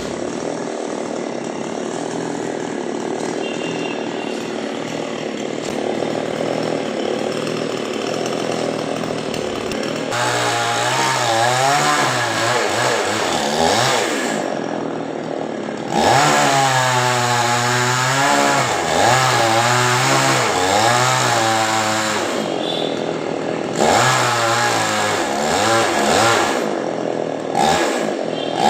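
Chainsaw cutting a coconut palm trunk. It runs steadily at first, then from about ten seconds in revs up and down again and again, its pitch rising and falling as it works.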